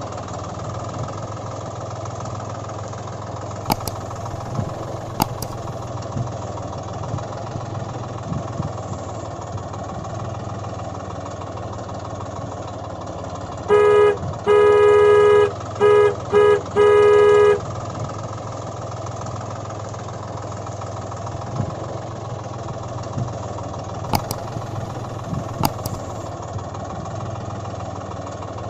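Tractor engine running steadily at idle, with a vehicle horn honking in the middle: one long blast, two short toots, then another long blast. A few sharp clicks near the start and near the end.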